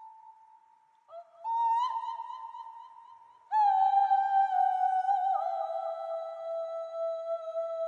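Kulning, the Scandinavian herding call, sung by a woman in a high, clear voice. It comes in long held notes with hardly any words: a new phrase starts about a second in, and another about three and a half seconds in, each stepping down in pitch and slowly fading.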